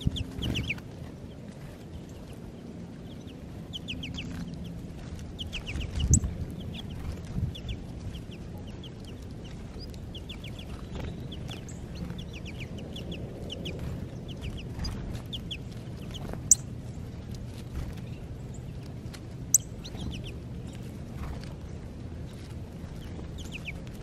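Small songbirds chirping and twittering in short, high, falling calls, with a feeding flock of American goldfinches and a northern cardinal the likely callers. Two sharp clicks stand out about three seconds apart in the second half, over a low steady background rumble.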